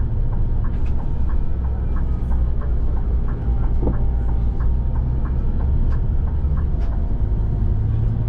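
Moving shuttle bus heard from inside the cabin: a steady low drone of engine and road, with light clicking rattles from the cabin fittings.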